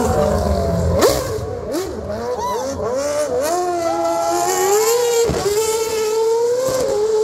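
Red Bull Racing Formula 1 car's engine revving hard, its high note sweeping up and down as it accelerates and shifts, with a sharp rise in pitch about a second in.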